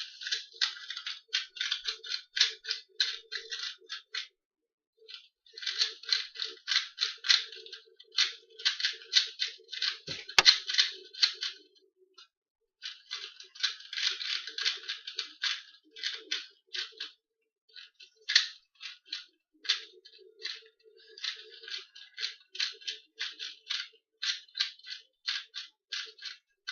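2x2 Rubik's cube being turned rapidly by hand during a speed solve: quick runs of plastic clicking as the layers turn, with brief pauses between bursts. One sharper snap comes about ten seconds in.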